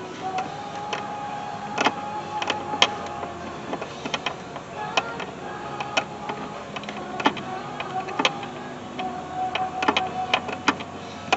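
Sharp, irregular clicks and taps from a 5/32 hex wrench working loose the hold-down bolt of a car's AC expansion valve, over background music.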